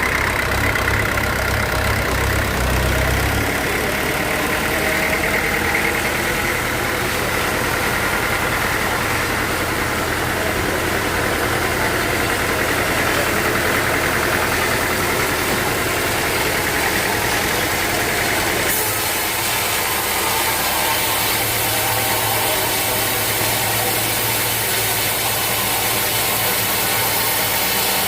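Sawmill machinery's engine running steadily, with a constant mechanical drone.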